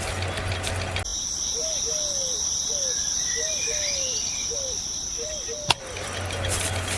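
An insect's steady high-pitched trill with short falling chirps below it. It ends with a sharp click about three quarters of the way through, and a steady noisy hum takes over.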